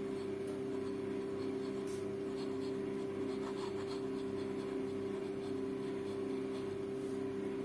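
Steel EF nib of a Hong Dian 5010 fountain pen writing on grid paper, a faint, light scratching that this fine nib gives, under a steady low hum.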